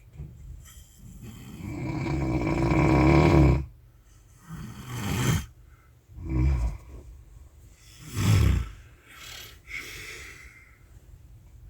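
A sleeping person snoring: one long snore that builds up over about two and a half seconds, then three shorter snores a second or two apart, easing into quieter breathing near the end.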